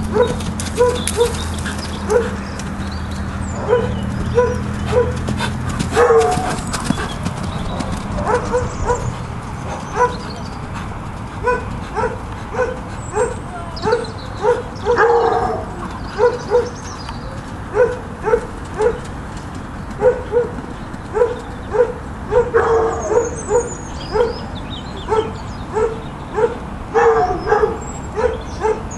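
A dog barking over and over in short yaps, about one or two a second, with a few longer drawn-out cries among them.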